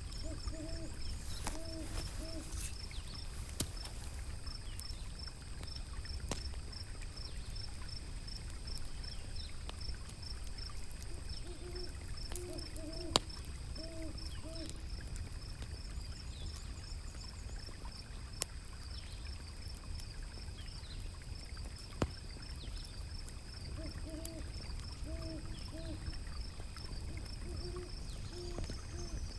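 An owl hooting in three short series of three or four hoots, over a steady low rush of river water. A few sharp, sparse crackles from a wood fire and a steady high pulsing chirp sit behind them.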